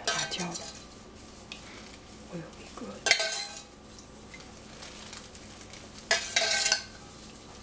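A metal spoon scraping against the inside of a stainless steel saucepan, three short scrapes about three seconds apart, the pan ringing briefly with each.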